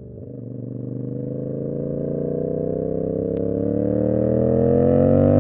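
Tuned CFMoto 450SS parallel-twin motorcycle engine pulling under steady acceleration, its revs and loudness climbing smoothly and evenly.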